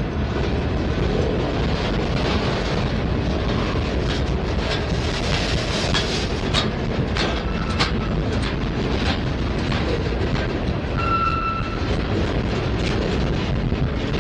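Norfolk Southern freight cars (loaded centerbeam flatcars, a covered hopper and tank cars) rolling past steadily: a continuous rumble of steel wheels on rail with clickety-clack over the joints and several sharp clacks. About eleven seconds in comes a brief high squeal from the wheels.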